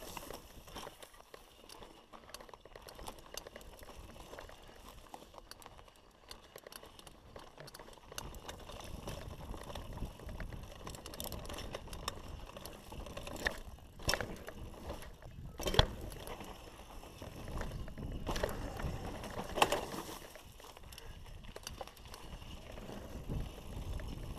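Mountain bike ridden over a rough dirt trail: steady tyre and drivetrain noise with the bike rattling, and a few sharp knocks over bumps, the loudest about two-thirds of the way in.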